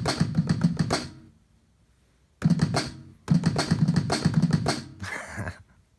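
Hip-hop drum pattern playing back from an Akai MPC Live: a quick, even run of crisp percussion hits over a heavy low end. It stops about a second in, starts again about two and a half seconds in, breaks off briefly, then runs on before fading out near the end.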